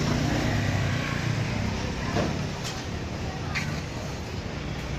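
Street background noise: a steady low engine-like hum, with two short sharp scrapes or clicks a second apart near the middle.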